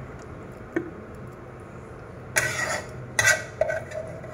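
Metal spoon on a ceramic plate: one light tap just under a second in, then three short scrapes in the second half as it cuts through the cooked fish.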